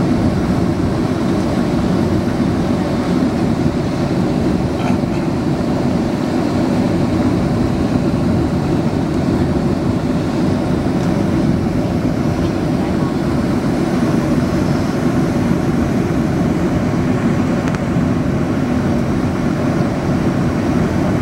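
Steady, even roar inside a jet airliner's cabin: engine noise and rushing air heard from a window seat over the wing, on final approach with the flaps extended.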